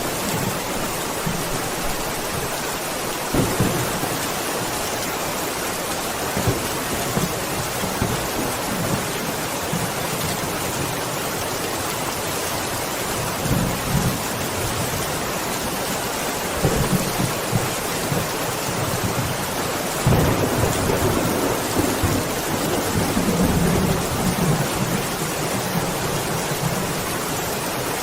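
Steady rain with distant thunder rumbling several times, the longest roll a little past the middle.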